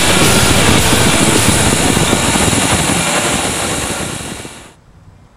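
Steam locomotive hissing steam, a loud steady rush with a low rumble underneath, fading out about four and a half seconds in.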